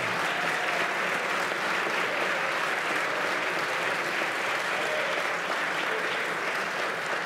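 A large seated audience applauding, a steady dense patter of many hands clapping that eases slightly near the end.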